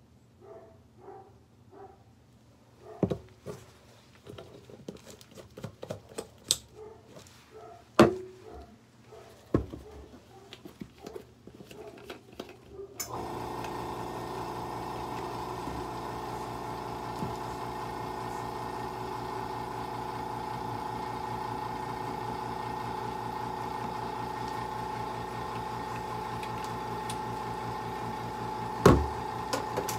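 Clicks and knocks of cans and a plastic mixing cup being handled. About 13 seconds in, a small electric motor starts up and hums steadily, and there is a sharp knock near the end.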